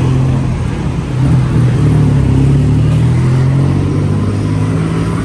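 Motor vehicle engine running close by at a steady idle, a low even hum over general street traffic noise.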